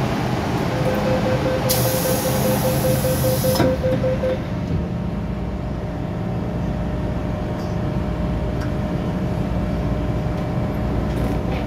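MTR M-Train door-closing warning: a rapid string of beeps for about three and a half seconds, with a sharp hiss from the doors sliding shut in the middle of it. Then the train's steady low running rumble as it pulls away.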